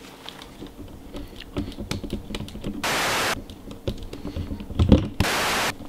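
Handling noise from a camera being picked up and carried: an irregular run of clicks, knocks and rustles. Two abrupt half-second bursts of static hiss cut in, about three seconds in and near the end.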